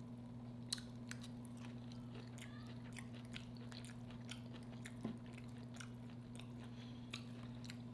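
A person chewing a mouthful of red snapper and sautéed cabbage: soft, wet mouth clicks scattered irregularly throughout, over a steady low hum.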